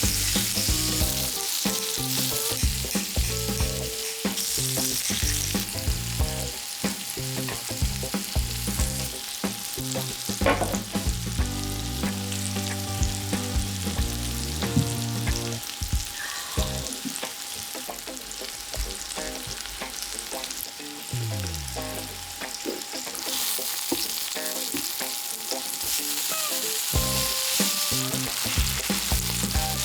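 Pork intestine (makchang) sizzling on a hot grill, with a continuous crackle of many small pops.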